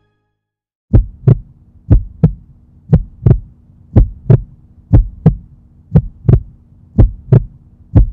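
Heartbeat sound effect: paired lub-dub thumps about once a second over a steady low hum, starting about a second in.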